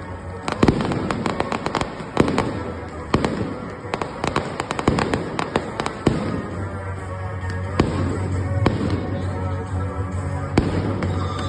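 Aerial fireworks going off in rapid succession, with many sharp bangs and crackling, and over a dozen reports in quick clusters.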